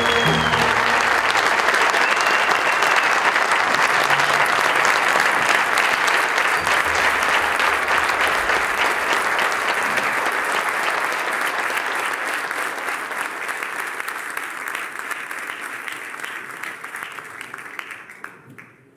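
Concert audience applauding after a wind band's piece, as the band's last held chord dies away in the first second. The clapping holds steady, then thins and fades out over the last few seconds.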